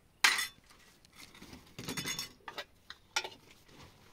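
A sharp clink about a quarter second in, then a run of lighter clinks and taps of hard objects being handled, about two to three seconds in.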